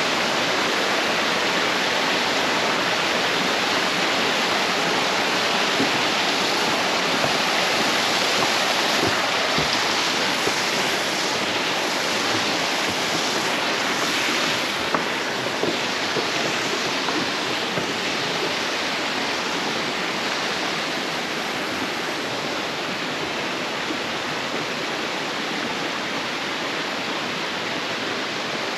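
Steady rush of water in a rocky gorge, easing off slightly over the last several seconds.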